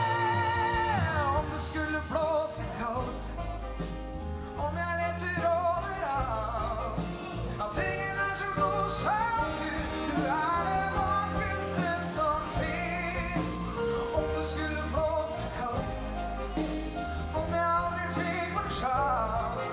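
Live big band music with a male singer: the singer holds wavering, vibrato-laden notes over saxophones, brass, bass and drums with light cymbal ticks.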